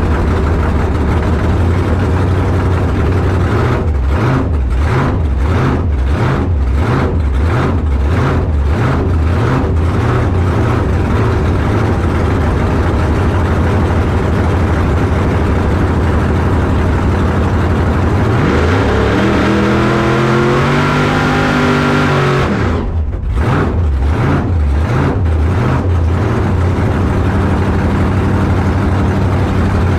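Drag car's engine running loud with an uneven, pulsing note. Past the middle it revs up, climbing steadily in pitch for about four seconds, then cuts off suddenly and drops back to the uneven running.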